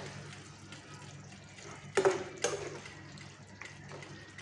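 A spoon stirring through beef bones in a simmering, saucy braise, with wet liquid sounds from the sauce. About two seconds in, two sharp knocks of the spoon against the pan, half a second apart.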